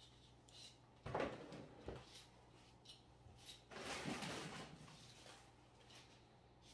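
Quiet kitchen handling noises while a layered dessert is assembled: a sharp knock about a second in, a lighter click soon after, a few faint ticks, and a brief scraping rustle around four seconds in.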